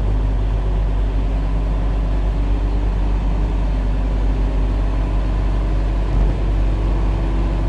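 Semi-truck's diesel engine and road noise heard inside the cab while cruising on the highway: a steady low drone with an even engine hum.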